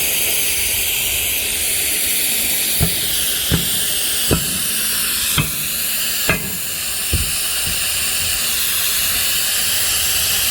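A steady high hiss, with six short sharp knocks spaced roughly a second apart in the middle, from truck-tyre repair work.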